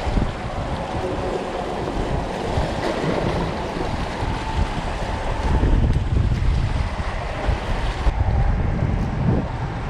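Wind buffeting the microphone over small waves splashing against a rocky shoreline, the rumble of the gusts swelling around the middle and again near the end.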